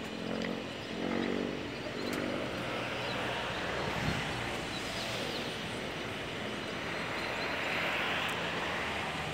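Distant jet airliner approaching to land: a steady rushing engine noise that swells toward the end, over the hum of road traffic below.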